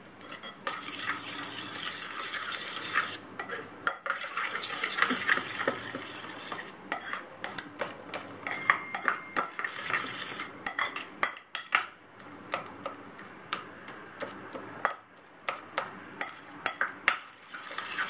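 A spoon stirring and scraping around a stainless steel bowl, mixing a wet mix of egg white, butter and flaxseed powder. Steady scraping through the first several seconds, then it breaks into quicker separate scrapes and clinks against the bowl.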